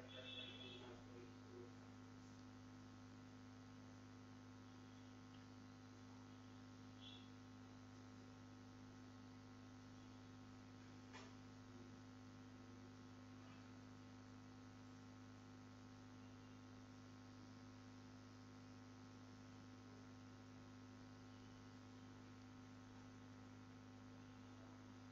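Near silence with a steady low electrical hum, and one faint click about eleven seconds in.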